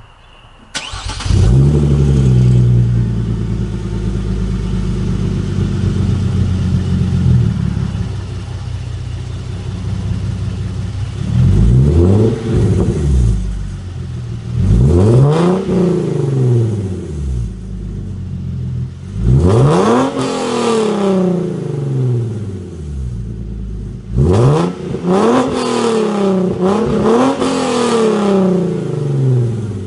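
Hyundai Genesis Coupe 3.8 V6 with headers, test pipes in place of the catalytic converters, and a cat-back exhaust that keeps its mufflers. The engine starts up and holds a raised idle, then drops to a lower idle about seven seconds in. It is then revved about five times, each rev rising and falling back to idle.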